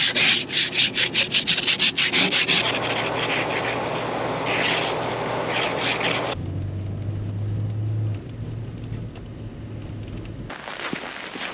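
An ice scraper scraping frost off a car windshield in quick, repeated strokes. About six seconds in it cuts to the steady low drone of a Toyota Land Cruiser driving on a snowy road, heard from inside the cabin.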